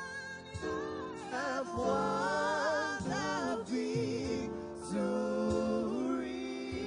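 Live gospel worship song: a small group of male and female singers singing together into microphones over instrumental backing.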